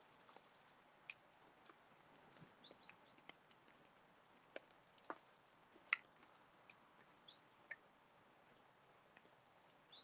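Faint scattered sharp taps of crows' beaks pecking food from a metal feeding pan, the loudest about six seconds in, with a few short high chirps of small songbirds.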